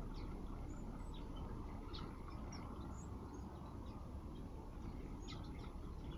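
Small aviary finches and waxbills chirping: short, high tweets scattered through, over a steady low background rumble.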